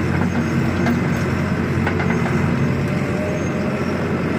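A vehicle engine running steadily, a low even drone with light rattles and clicks, as heard while riding along.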